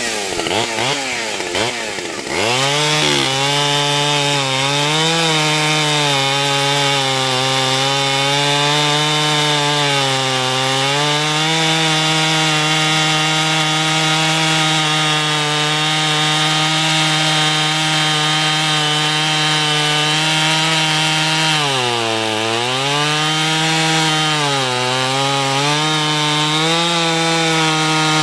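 Pioneer P45 72cc two-stroke chainsaw with a case-reed, boost-port engine. It is blipped quickly up and down, then held at full throttle cutting wood from about two seconds in. Its pitch stays high and steady, with several brief sags as the chain loads up in the cut; the deepest sag comes about two-thirds of the way through.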